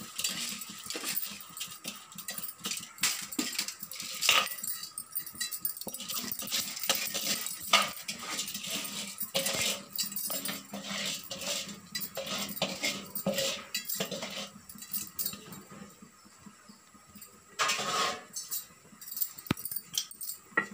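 Soaked rice being tipped from a steel plate into an aluminium pot of boiling water, with irregular scraping and clinking of metal against the pot rim.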